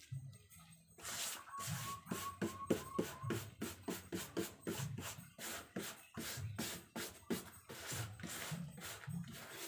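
Rapid rubbing strokes, about three to four a second, of a hand tool working cement-bag paper onto a carved wooden barongan head form. The strokes start about a second in.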